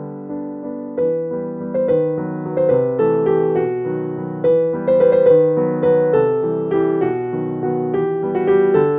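Background instrumental music: a melody of struck notes that start sharply and fade, getting louder about a second in.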